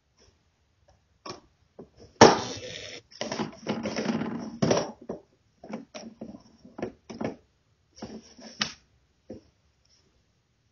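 Husky pulling tissues out of a tissue box with its mouth: a run of irregular paper rustling and crinkling noises with short clicks between them. The loudest rustle comes about two seconds in.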